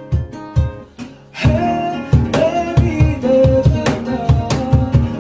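Acoustic band music: two acoustic guitars and a man singing over a steady thumping beat of hand percussion. About a second in, the music drops away briefly, then comes back fuller with the voice.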